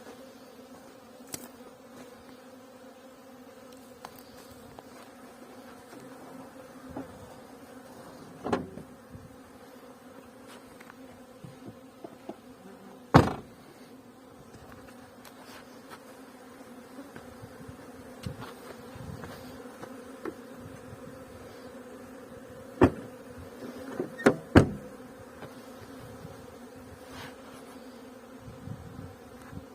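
A swarm of honeybees buzzing steadily, a constant hum around hives, with a few sharp knocks scattered through, the loudest about halfway and several more close together near the end.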